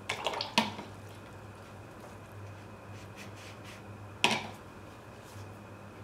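A paintbrush being wetted in a water jar: light clinks of the brush against the jar and a little splashing, a few sharp clicks in the first half-second and one louder clink about four seconds in, over a steady low hum.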